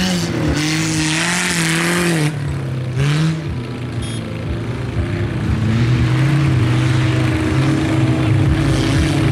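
Vehicle engines running and revving, the pitch wavering up and down for the first few seconds, then holding steadier from about halfway.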